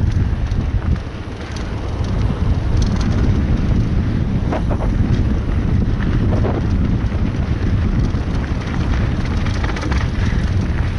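Wind buffeting the microphone of a camera on a mountain bike riding fast downhill on dry dirt singletrack, a steady low rumble mixed with tyre and frame rattle. Short clattering knocks come about four and a half and six and a half seconds in.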